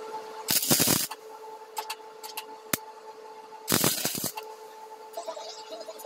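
MIG welder striking two short arcs, each a crackling burst of about half a second, about a second apart and again near the middle; these are tack welds fixing a steel rod to a built-up weld. A steady hum runs in between, with a single sharp click.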